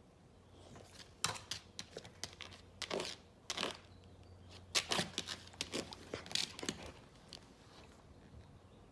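A Samoyed snuffling and mouthing at the floor by a door: a run of quick, irregular crackly sounds from about a second in, loudest about five seconds in, dying away after about seven seconds.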